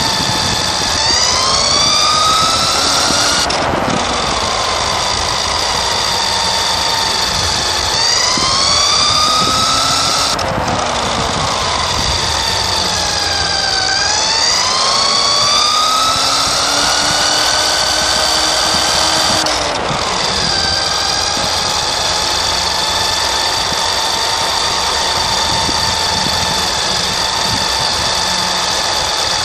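Nikko Dictator II RC car's electric motor and gears whining, the pitch climbing as it speeds up and dropping sharply when the throttle is let off, several times over, with rushing tyre and road noise, heard from on board the car.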